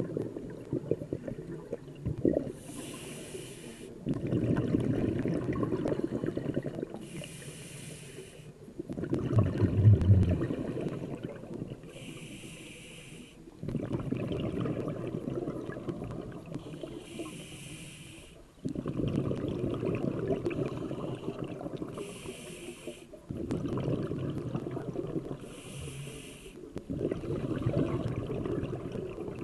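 Scuba diver breathing through a regulator underwater: a short hiss on each inhale, then a longer rush of exhaled bubbles, about one breath every four to five seconds. One exhale about ten seconds in is louder than the rest.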